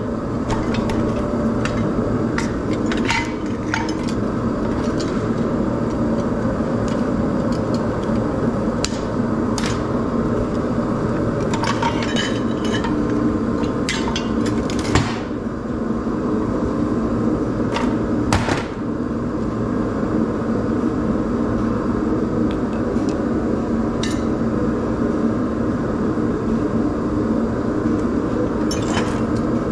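Scattered clinks and knocks of small metal parts being handled and tossed while a light fixture is dismantled for scrap, with one sharper knock about halfway through, over a steady mechanical hum.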